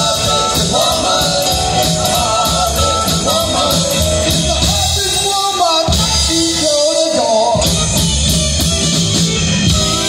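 Live blues-rock band playing: electric bass, electric guitar, keyboard and drums keep a steady beat, with an amplified harmonica playing a bending, wavering lead line on top.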